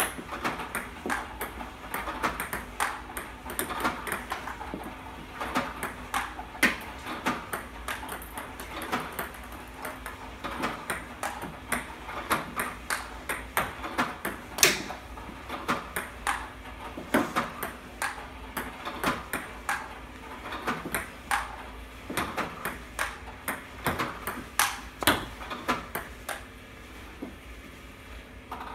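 A table tennis drill: ping pong balls fed by an iPong Pro robot click off a three-star Stiga Pure Color Advance paddle and bounce on the table, a few sharp clicks a second. The clicks thin out and get quieter near the end.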